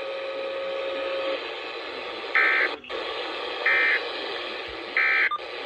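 Three short bursts of Emergency Alert System digital data tones, each about a third of a second long and about 1.3 s apart, over steady radio static. They are the SAME end-of-message code that closes the severe thunderstorm warning just broadcast. A faint steady tone sits under the static for the first second or so.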